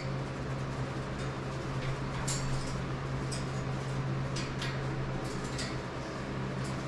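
Double yellow-headed Amazon parrot's beak and claws making faint, scattered clicks and scrapes on the perches and fittings of its cage, about one every second, over a steady low hum.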